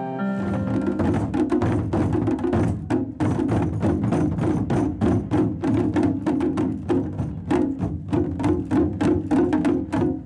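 Percussion music: fast, busy drumming with sharp wooden-sounding knocks, coming in as the last piano notes die away in the first second.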